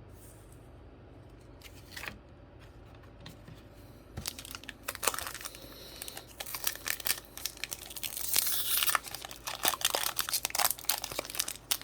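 Foil booster pack wrapper being torn open and crinkled: a quiet stretch, then from about four seconds in a dense run of sharp crackles and crinkles.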